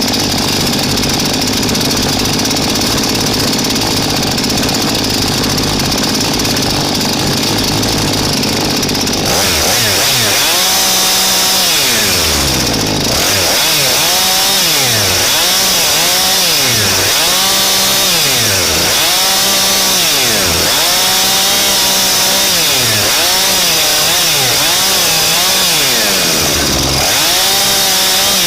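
Husqvarna two-stroke chainsaw running: steady at first, then from about nine seconds in repeatedly revving up and dropping back, roughly once every second and a half.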